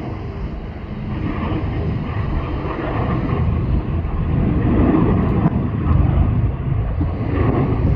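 Jet airliner engines rumbling, building from about a second in to a peak around five seconds in. Wind buffets the microphone throughout.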